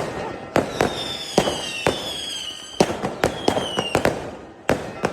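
Aerial fireworks display: about ten sharp bangs of bursting shells in quick, irregular succession, each trailing off into a rumbling echo, with two high whistles falling in pitch from whistling shells, the first lasting over a second.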